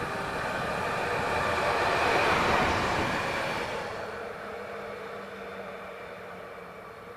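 A train passing on the line. The rush of wheel and track noise builds to a peak about two seconds in and then fades away, with a steady whine running underneath.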